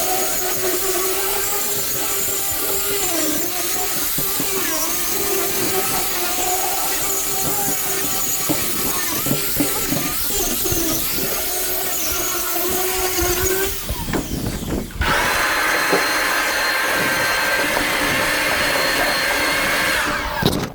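Electric grinder working down wooden beehive pallets to clear off old beeswax and dirt. Its pitch wavers as it bears on the wood, it drops out briefly about two-thirds of the way through, then runs on steadier.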